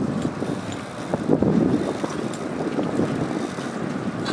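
Wind blowing on the microphone, a low rumble that swells and ebbs in gusts, loudest a little over a second in.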